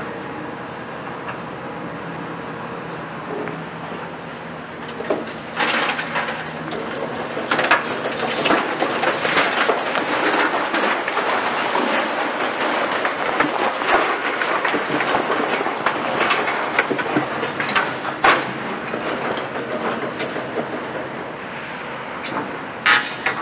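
A CAT 340 long-reach excavator's engine hums steadily, then about six seconds in a long crashing and crumbling begins as a brick wall is torn down and breaks apart. Sharp cracks of breaking masonry stand out through it, the loudest past the middle and again near the end.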